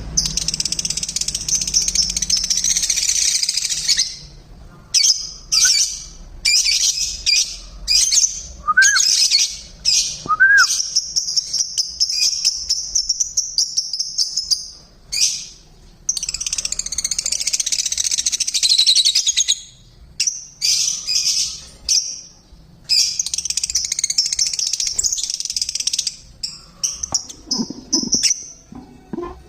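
Lovebirds chattering and chirping loudly together, a dense high-pitched twittering that comes in bouts with short pauses between them.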